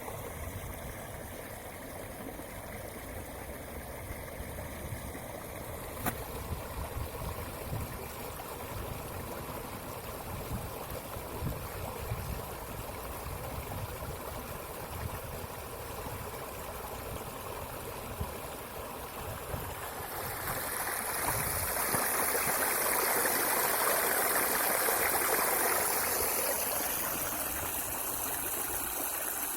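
Spring stream running with a steady rush of water, which grows louder and brighter about twenty seconds in and eases a little near the end.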